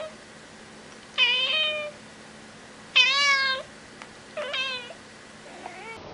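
Grey tabby cat meowing three times, about a second and a half apart, each call falling slightly in pitch and the third shorter, with a fainter meow just before the end.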